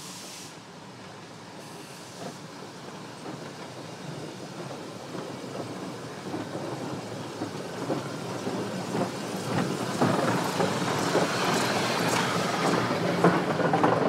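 Narrow-gauge train hauled by a geared steam locomotive, approaching and growing steadily louder: a rumble with clicks and knocks that come thicker and louder toward the end.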